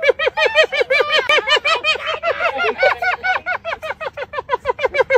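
Spotted hyenas giggling: a rapid, rhythmic string of high-pitched, laugh-like whoops, several notes a second. Two runs overlap for a while about a second in.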